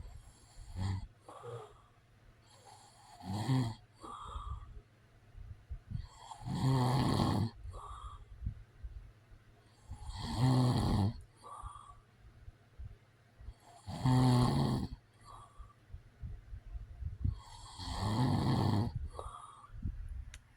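A man snoring in his sleep. The first few seconds hold only softer breaths. From about six seconds in come four loud snores, each about a second long and spaced roughly every three and a half to four seconds, with quieter breaths between them.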